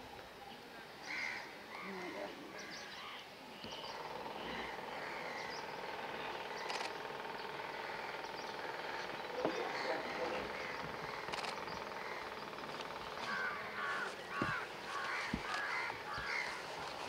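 Outdoor ambience with faint, indistinct distant voices and a few scattered clicks.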